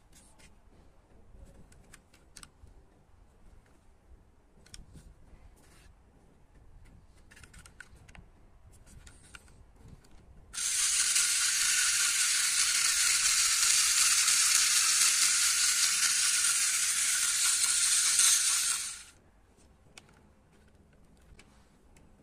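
Toy tractor's small motor and gears running with a steady rattling whir for about eight seconds, starting suddenly and cutting out. Before it, faint clicks and taps of the plastic toy being handled.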